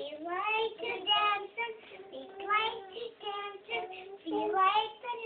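Young child singing a song in short phrases with brief pauses between them.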